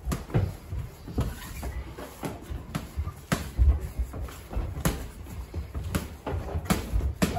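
Boxing gloves smacking on gloves and padding during sparring: irregular sharp hits, with low thuds and scuffs of footwork on the ring floor.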